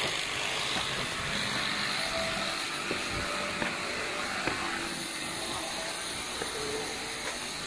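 Steady hiss of outdoor background noise, with a few faint footsteps on concrete steps.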